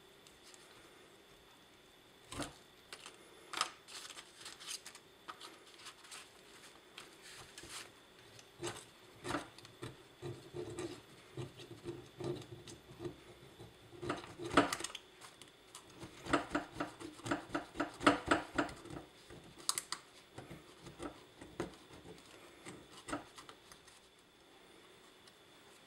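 A thin pick scraping and clicking inside a Briggs & Stratton 5 HP carburetor body, prising out crusted dirt and old deposits. The strokes are irregular, with a quick run of rapid scrapes about two-thirds of the way through.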